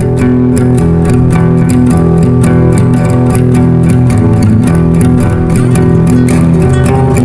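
Background music: guitar-based instrumental with a bass line and a steady beat.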